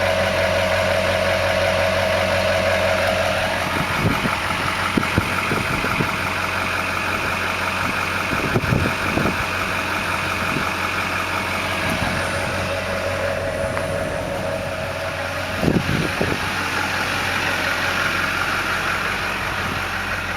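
LB7 Duramax 6.6-litre V8 turbo diesel idling steadily, in need of new injectors, with a few brief knocks. A mid-pitched tone stops about three and a half seconds in.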